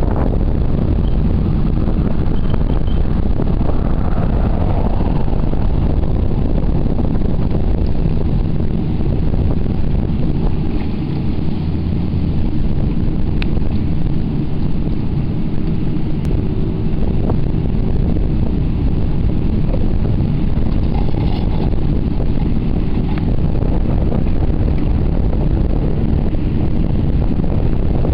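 Heavy diesel engine of a horizontal directional drilling rig running steadily, a constant low drone with a few faint clicks.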